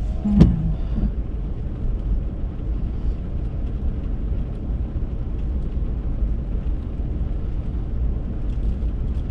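Steady low rumble of a vehicle driving along, engine and road noise.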